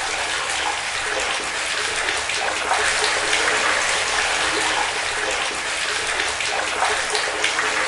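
Water running steadily and splashing, with a fine patter of drops.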